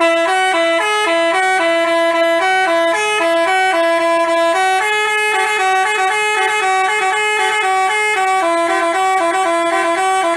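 Telolet Basuri multi-tone bus horn playing a tune: a continuous run of quick, stepped horn notes that starts suddenly.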